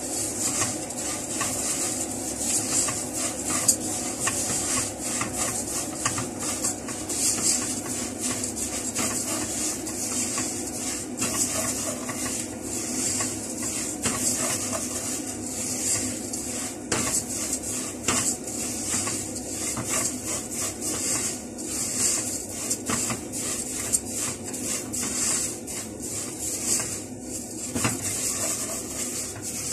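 Silicone spatula stirring thin vermicelli as it toasts and browns in butter and oil in a nonstick pot: a continuous scraping, rustling sound of the strands moved against the pan, with a steady hiss underneath.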